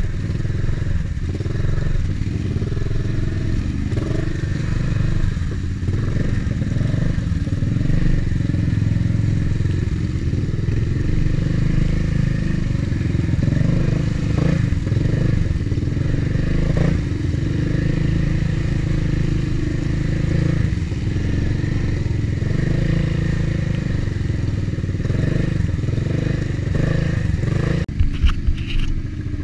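ATV engine running steadily under load while driving through deep floodwater, with water splashing around the machine. Near the end, a few sharp knocks and rubbing as a hand handles the camera.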